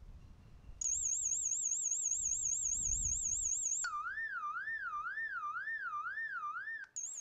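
Arlo Essential Spotlight Camera's built-in siren sounding, loud. It starts about a second in as a high, fast electronic warble, switches about four seconds in to a lower, slower warble, and returns briefly to the high warble near the end.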